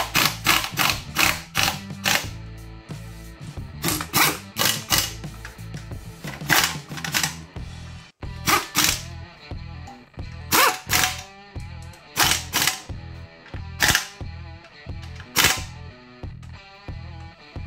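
Background music with sharp percussive hits in uneven groups over a steady low bass line, breaking off briefly about halfway through.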